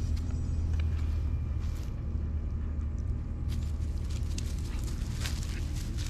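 A steady low rumble, with soft crackling and rustling from about three and a half seconds in as puppies sniff and paw through grass and dry leaves close by.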